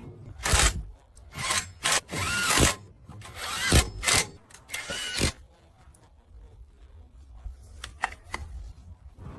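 Tool work during a motor repair: about five rough scraping or rubbing strokes, some with a faint squeak, followed by two sharp clicks near the end.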